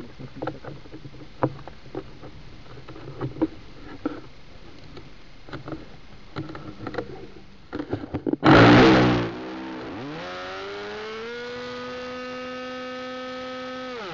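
Small model-airplane glow engine being started: a few seconds of clicks and knocks as it is handled, then a loud burst about eight and a half seconds in as it catches. It runs up to a steady high-pitched buzz and starts to drop in pitch right at the end.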